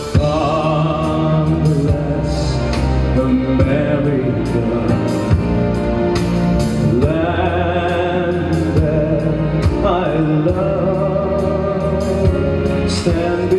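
A man singing a slow song into a microphone over a backing track, holding long wavering notes.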